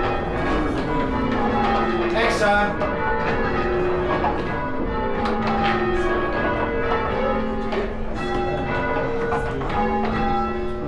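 A ring of six church bells being rung full-circle, strikes following one another steadily. Each bell's note rings on under the next.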